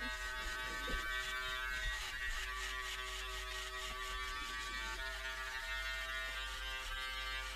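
Electric shaver buzzing steadily against the face as it shaves off a beard, its pitch shifting slightly as it is moved and pressed.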